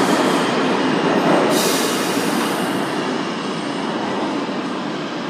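New York City Subway 5 train of R142/R142A cars pulling out into the tunnel: a loud rush and rumble of steel wheels on the rails, fading steadily as it recedes, its high hiss dying away about three seconds in.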